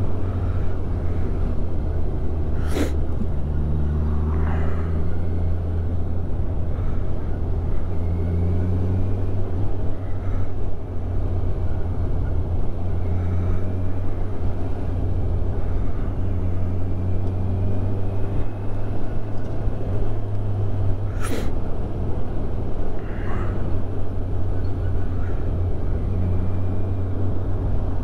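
Kawasaki Ninja 1000SX inline-four engine running at town speed, heard from the rider's helmet mic under a steady heavy low rumble of wind and road. Two sharp clicks, about three seconds in and again about 21 seconds in.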